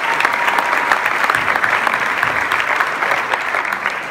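A large audience applauding, the clapping beginning to fade near the end.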